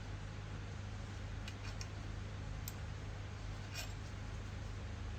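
A few faint light clicks and taps of parts being handled, over a steady low hum.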